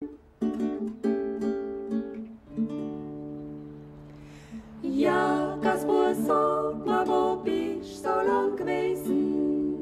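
Alpine folk music: a plucked guitar introduction of short chords, giving way to held notes, then voices singing in harmony over the accompaniment from about five seconds in.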